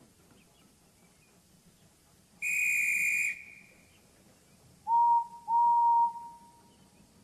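A guard's whistle gives one shrill blast of about a second, then a steam locomotive whistle answers at a lower pitch with two toots, a short one and a longer one: the right-away signal to start the train.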